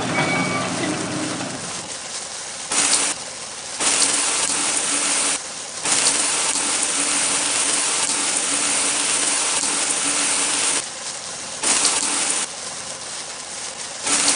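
Water spraying in hissing spurts, as from a fire hose putting out fires: several short spurts and one long one of about five seconds, with a quieter steady hiss between them.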